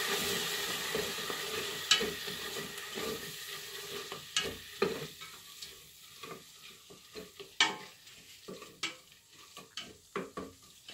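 Onions and tomato sauce sizzling in a stainless steel pot on a gas hob, stirred with a spoon that clinks sharply against the pot many times; the sizzle is loud at first and dies away over the first several seconds, just after a little hot water has gone in.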